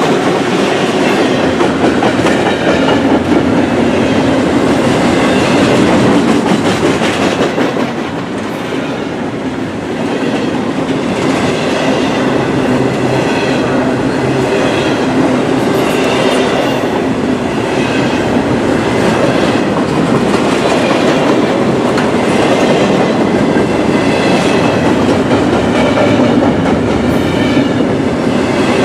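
Freight train of double-stack container well cars rolling past at close range, its wheels clattering steadily over the rail joints. It is louder for the first several seconds, as the trailing locomotive goes by.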